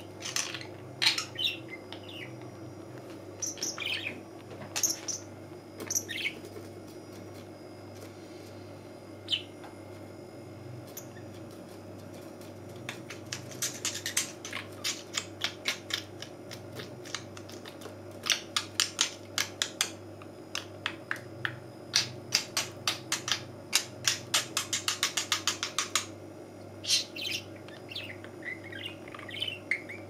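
Pet budgerigar chirping in short high calls, with a long run of quick sharp ticks, several a second, through the middle.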